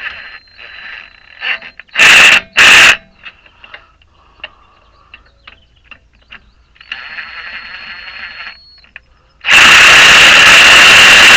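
Power impact wrench tightening a fastener in bursts: two short bursts, a quieter run with a steady whine, then a long loud hammering run near the end.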